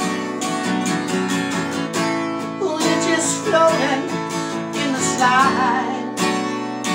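Acoustic guitar strummed in a steady rhythm, with a harmonica on a neck rack joining in about halfway with a wavering, bending melody.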